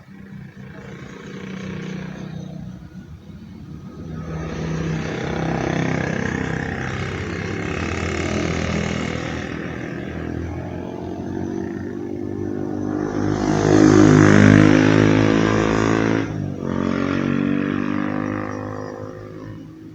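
Road vehicles passing close by one after another, their engines swelling and fading away. The loudest goes by about 14 seconds in.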